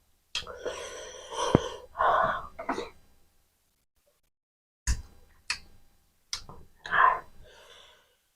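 Close-miked eating sounds of a man eating mutton curry with rice and green chilli: wet chewing and mouth noises with a sharp click, a short pause, then three quick smacks and a last burst of chewing.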